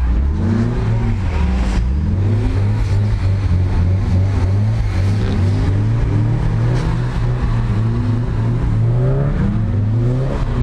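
Car engine revving up and down over and over, the pitch swinging with on-off throttle as in drifting.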